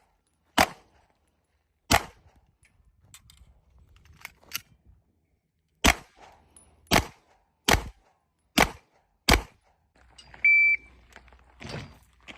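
Gunshots at a steel-target match: about seven sharp shots at uneven spacing, with fainter distant pops or steel pings between them. About ten and a half seconds in comes one short high electronic beep, like a competition shot timer.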